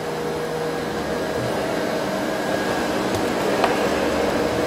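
Steady whirring hum of a running motor or fan, with a couple of faint light knocks about three and a half seconds in.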